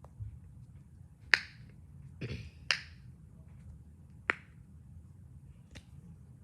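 A miniature pop-it fidget toy being pressed, its bubbles giving sharp single pops about every second and a half, four in all, with a softer rubbing press just before the second pop.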